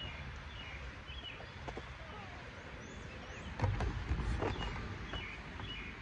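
Outdoor ambience: small birds chirping in short, repeated calls over a steady low rumble, which grows louder about three and a half seconds in.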